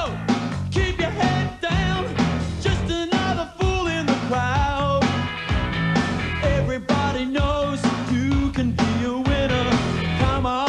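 Background rock music with a steady beat, a singing voice and bass.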